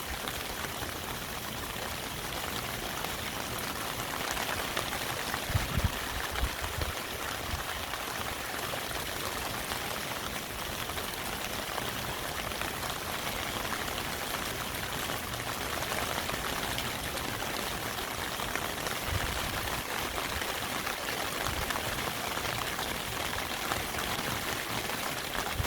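Heavy rain pouring down steadily with a dense patter, like water streaming, and a few dull low thumps of drops or runoff a handful of seconds in and again later.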